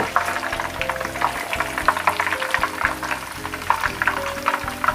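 Hot oil crackling and sizzling around whole fried tilapia in a frying pan, as the fish are lifted out with a wire strainer. Soft background music plays under it.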